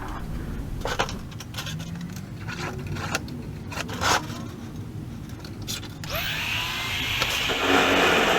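Scattered clicks and knocks of tools and metal being handled, then a handheld power tool switches on about six seconds in, spinning up and running with a loud, hissing whine.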